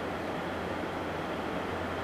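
Diesel-electric freight locomotives of a Norfolk Southern train working uphill under load, a steady engine rumble.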